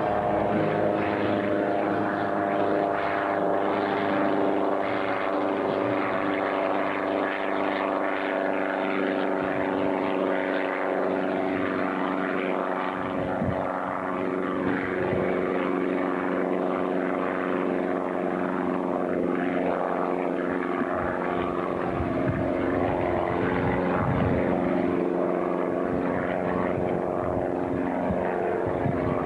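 Hughes 300 light helicopter in flight: its four-cylinder piston engine and rotors make a steady, even drone with a hum of several steady pitches.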